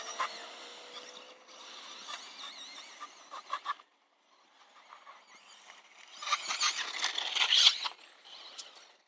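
Electric 1/10 RC buggy with a 3950KV brushless motor on a Leopard 60A ESC, its motor whining high and wavering in pitch with the throttle as it drives over dirt. The sound fades out for a moment just before halfway, then comes back louder and rougher from about six seconds in, with dirt and gravel noise from the tyres as the buggy comes near.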